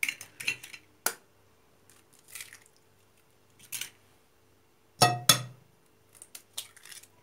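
Scattered clinks and knocks of kitchen bowls and utensils being handled, the two loudest close together about five seconds in.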